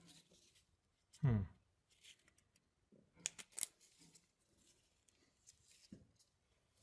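Small laser-cut parts being handled and fitted together by hand: light rustling and scattered sharp clicks, with a cluster of clicks about three seconds in. A brief falling hum of a voice about a second in.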